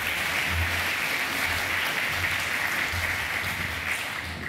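Audience applauding in a large hall, a steady dense clatter of many hands that thins out near the end.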